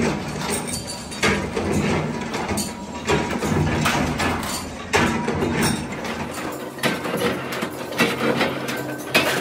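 Workshop machinery running with a steady hum, with repeated clanks and rattles of thin sheet-steel strips being cut and handled.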